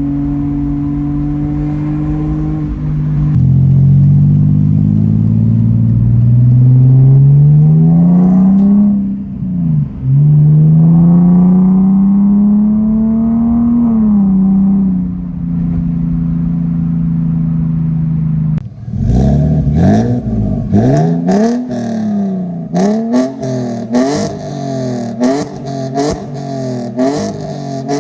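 BMW E46 exhaust with catless headers, a Vibrant resonator and a 4-inch single-exit Greddy muffler: a steady drone, then two long pulls rising in pitch with a drop between them like a gear change, then steady cruising again. Near the end comes a quick run of short revs about once a second, with sharp cracks.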